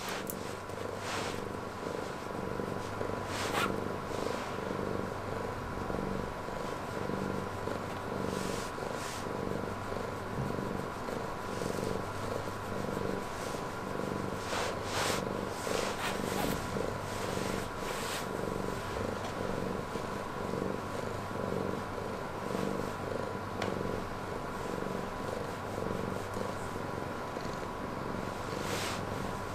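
Black cat purring steadily and continuously while being stroked, with a few short rustles from the hand moving over its fur.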